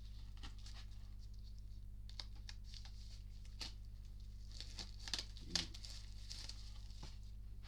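Crinkling, rustling and scattered light clicks as a CD package is handled and opened, with a sharper click or knock about five and a half seconds in. A steady low electrical hum runs underneath.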